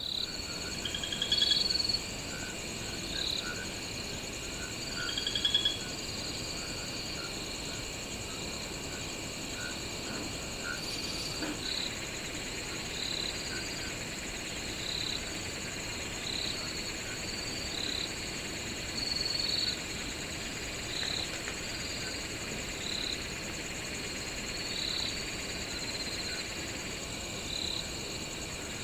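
Night ambience of crickets and frogs: a steady high insect trill, with short chirps repeating about once a second. Two louder rising calls come within the first six seconds.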